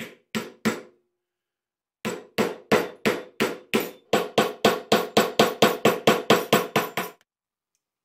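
A steel hammer striking a pine block laid over a folding knife's aluminum handle scales. Three quick taps, then after about a second's pause a run of some twenty blows that speeds up from about three to about five a second before stopping.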